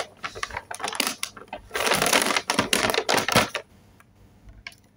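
Paper takeout bag crinkling and rustling as its folded top is handled and unrolled, a dense crackle that stops about three and a half seconds in.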